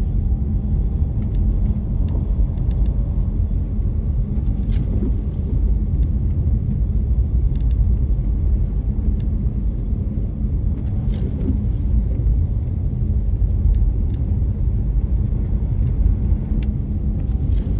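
Car driving on a snow-covered road: a steady low rumble of road and engine noise, with a few faint ticks now and then.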